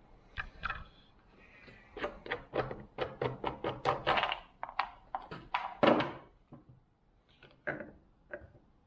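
Quick run of clicks and knocks from taking off the cover and air filter of a Holzfforma G660 chainsaw. They come thickest from about two to six seconds in, with a few scattered taps near the end.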